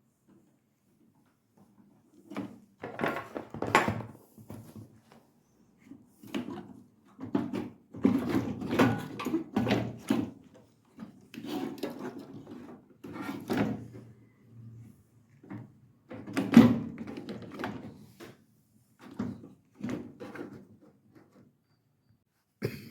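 A microwave oven's cooling-fan assembly being opened and taken apart by hand: parts clattering, scraping and knocking in irregular spells of a second or two, with short pauses between.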